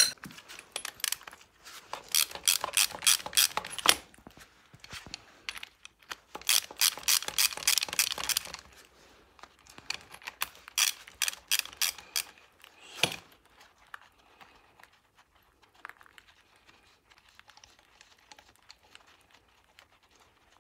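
Ratchet wrench clicking in three quick runs while bolts around the MTZ-82 tractor's front axle housing are undone, followed by a single knock and scattered faint metal clinks.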